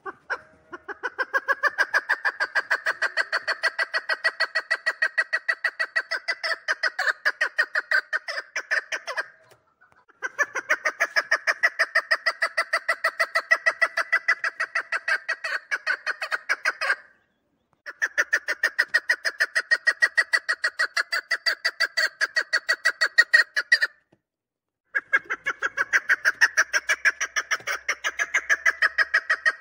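Chukar partridge calling: a rapid, even series of chuck notes, several a second, in four long bouts broken by short pauses.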